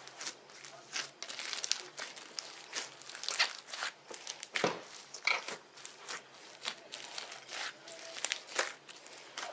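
Spongy slime being squished and worked by hand, giving an irregular run of sticky crackles, pops and crinkly clicks, with one louder pop about halfway through.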